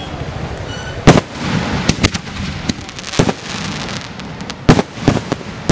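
Aerial colour firework shells bursting overhead: a loud bang about a second in, followed by several more booms and crackling over a steady background rumble.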